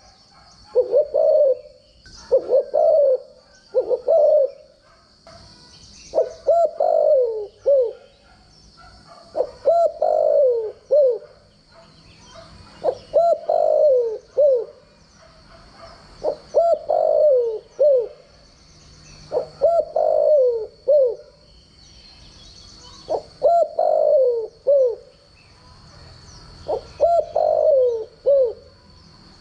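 Spotted dove cooing: short phrases of two to four falling coos, repeated about every three seconds, about ten phrases in all.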